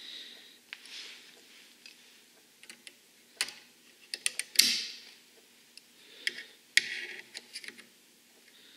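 Needle-nose pliers letting the mainspring legs down onto the trigger in a Saiga 12 shotgun's fire control group: scattered small metal clicks and ticks of steel tool on spring and parts. The loudest click comes a little past halfway, followed by a brief scrape, and another sharp click comes about three-quarters through.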